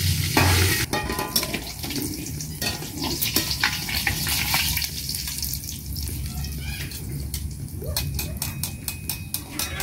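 Tofu frying in re-used oil in a steel wok: sizzling, loudest in the first second, with a metal spatula scraping and tapping against the wok. A quick run of clicks near the end comes as the fried pieces are lifted out.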